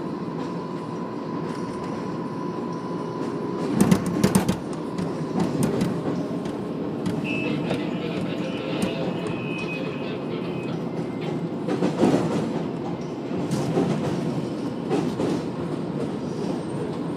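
R188 subway car running on elevated track: a continuous rumble with a steady whine that stops about four seconds in. Loud wheel clatter over track switches comes at about four seconds and again around twelve, with a few lighter clacks after. A brief high wheel squeal sounds in the middle.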